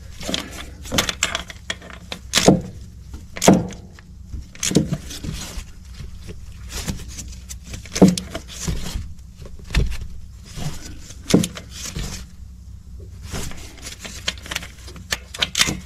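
Hand wrench tightening the mounting bolts of a newly installed AC compressor: irregular metallic clicks and clanks, with a few louder knocks.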